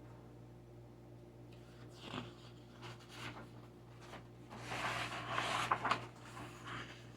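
Paper rustling as the pages of a large picture book are turned and handled: a short rustle about two seconds in, then a longer one near the end, over a steady electrical hum.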